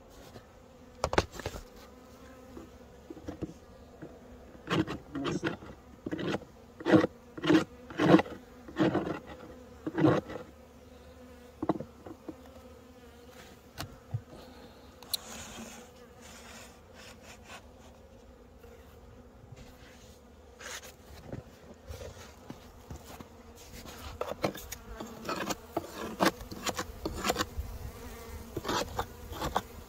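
Honeybees buzzing at a hive, a steady hum, over a series of knocks and scrapes from handling the hive, loudest in a cluster about seven to ten seconds in and again near the end.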